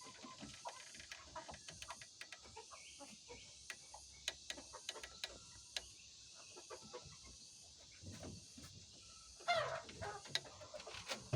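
White Leghorn hens, mostly quiet with scattered clicks and taps, then one loud call that slides down in pitch about nine and a half seconds in, with a few clucks after it.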